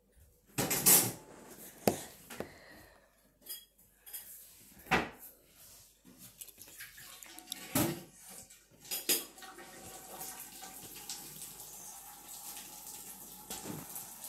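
Hard objects clattering and clinking several times, loudest about a second in. A steady rushing noise begins about two-thirds of the way through.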